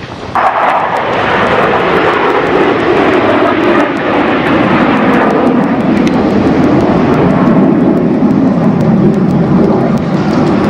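Loud jet roar from a formation of USAF Thunderbirds F-16s flying overhead. It comes in abruptly about half a second in, stays loud, and its pitch sinks slowly as the jets pass.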